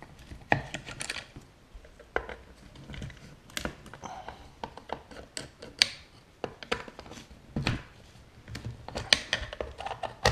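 Hand screwdriver undoing the screws on an external CB radio speaker's case: a run of irregular small clicks and taps as the screws are turned and the case is handled.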